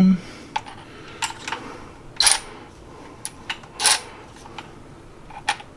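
Ratchet and socket on an extension clicking as 8 mm bolts are worked loose on a Honda CR-V rear differential: scattered sharp metallic clicks, with two short rattling runs of ratcheting about two and four seconds in.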